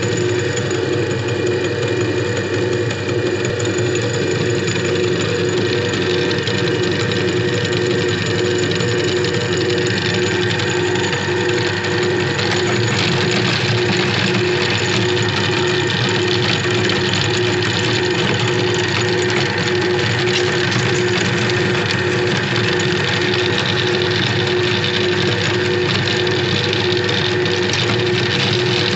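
Motor-driven meat grinder running steadily, its belt pulley spinning with a constant hum that holds one pitch throughout.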